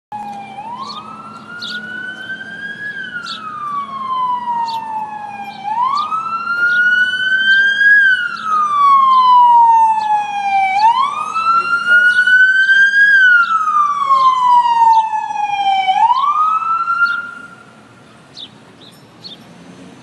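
Emergency vehicle siren in a slow wail: each cycle sweeps quickly up, climbs a little further, then falls slowly, about every five seconds. It repeats four times, growing louder, and drops away suddenly near the end.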